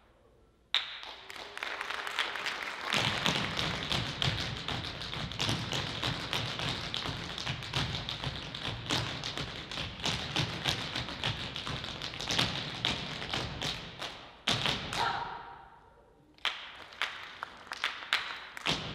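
African-style percussion ensemble playing a fast, dense rhythm of drum strikes and taps, with deeper drum thuds joining about three seconds in. It breaks off about two-thirds of the way through with a briefly ringing tone, then the strikes start again near the end.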